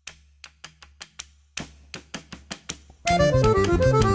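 Instrumental intro of a jingle: a run of quick, evenly spaced clicks over a faint low hum, then about three seconds in the full band comes in loud, led by accordion.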